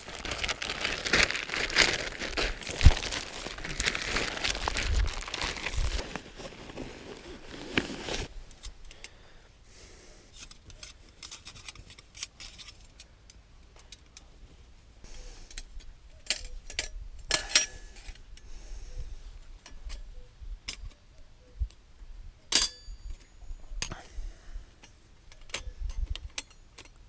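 A waterproof plastic tarp rustling and crinkling loudly as it is unfolded and spread out, for about eight seconds. After that comes quieter handling with scattered sharp metallic clicks and clinks from a folding multitool and the panels of a stainless steel folding stove.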